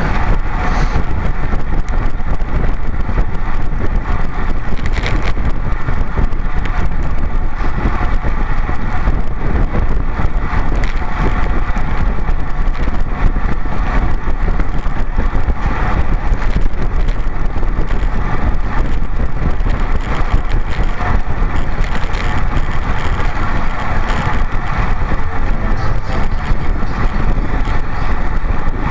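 Steady wind rush on the microphone of a road racing bicycle at race speed, with tyre and road noise underneath, unbroken throughout.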